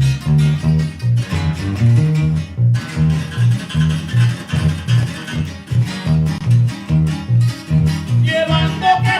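Live norteño corrido played in guitar style: plucked guitar strings over a steady alternating bass line in an instrumental passage between verses, with higher melody notes coming in near the end.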